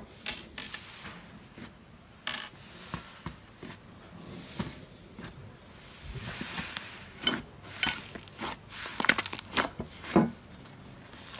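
A large mass of fluffy slime in a glass bowl being pressed and pulled apart by hand, giving irregular crackles, pops and clicks, a little denser near the end.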